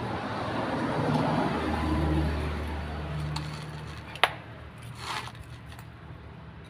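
Metal handling noise from a hydraulic bottle jack being taken apart at its base, with one sharp metal click a little past four seconds in and a short scrape about a second later. Under the first half, a steady low engine hum from a motor vehicle fades out.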